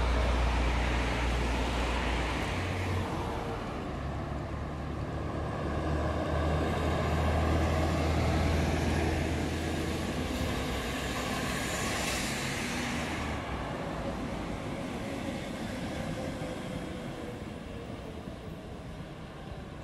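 City road traffic: buses and cars passing on a busy avenue, with the low hum of a bus engine at the start and the tyre rush of passing vehicles, fading gradually near the end.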